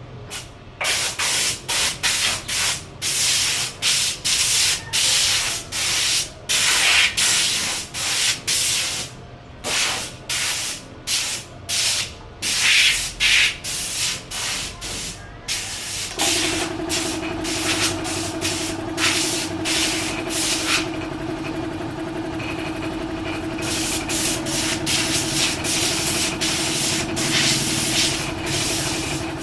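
Sandpaper rubbed back and forth on a door, about two strokes a second. About halfway through, a small motor starts and runs with a steady hum.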